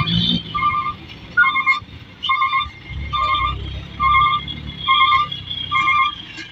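Dump truck's reversing alarm sounding a warbling beep a little more than once a second, over the low rumble of the truck's engine, which swells about three seconds in.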